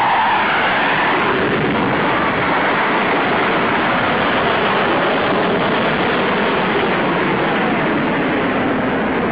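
Fighter jet engines roaring loudly and steadily during low high-speed passes, with a falling whine as a jet goes by near the start and again faintly later on.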